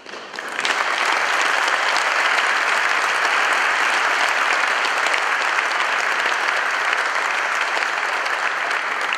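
Audience applauding: a dense, steady clapping that rises about half a second in.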